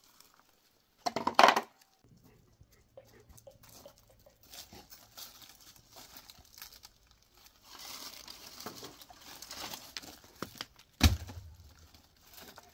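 Footsteps crunching on gravel and dry leaves, with dry twigs rustling and crackling underfoot. There is a loud crunch about a second in and a single sharp knock near the end.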